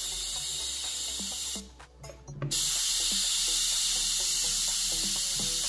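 Steady high hiss of corona discharge from two high-voltage ionic thrusters (ion-wind engines), which glow purple as they run. The hiss drops out for about a second near the middle.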